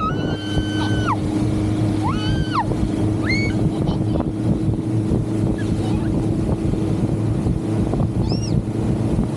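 Motorboat engine running steadily under way, with rushing wind and water noise. A few short high-pitched cries come over it in the first few seconds, and one more near the end.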